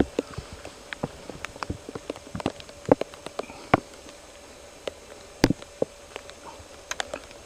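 Irregular sharp taps and ticks of heavy raindrops dripping onto rain gear in a wet rainforest, roughly one or two a second and uneven in loudness, over a faint steady hum.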